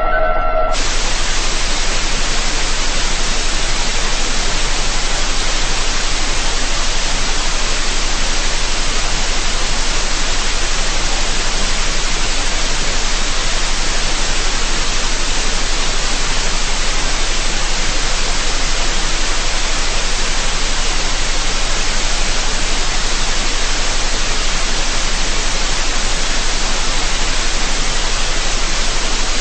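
Loud, steady static hiss like white noise on a distorted cartoon soundtrack, with a steady low hum beneath. It cuts in abruptly under a second in, replacing a pitched tone.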